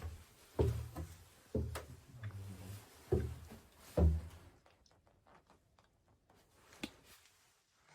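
A dog barking, muffled, five or six times about a second apart in the first half, then falling quiet apart from a single click near the end.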